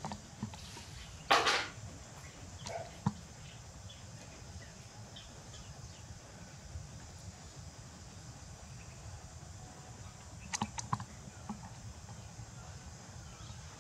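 Quiet close handling sounds over a low steady hum: a short, loud rustle about a second in, a few soft clicks and taps, and a quick cluster of sharp clicks near the end.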